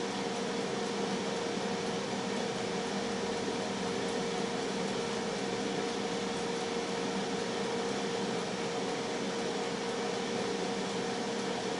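Tristar FR-6989 air fryer running: a steady fan whir with a constant low hum.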